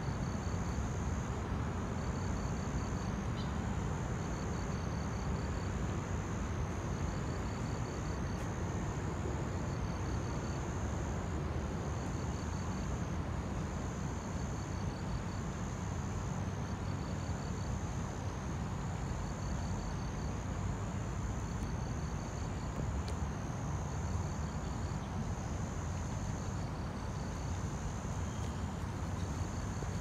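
Insects calling: a high, steady trill that breaks off briefly about every second and a half, with a quick run of ticking chirps repeating at the same pace. A low, steady rumble runs underneath.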